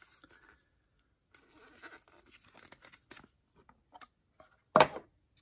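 A boxed die-cast toy car's packaging being handled and opened by hand: soft rustling and scraping with small clicks, then one loud sharp clack just before the end.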